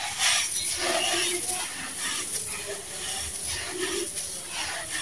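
Hands squeezing and crumbling damp, gritty sand-cement mix: a continuous crunchy, grainy rustle with repeated crackly bursts as lumps break apart and crumbs fall.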